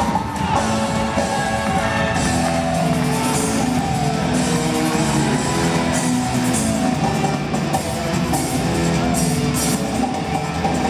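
Circus show music playing steadily.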